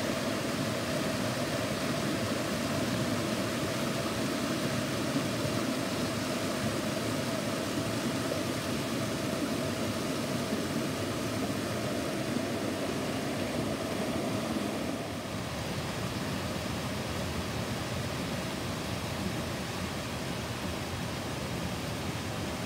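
A mountain creek rushing and splashing over boulders in small cascades, a steady rush of water that drops a little in level about fifteen seconds in.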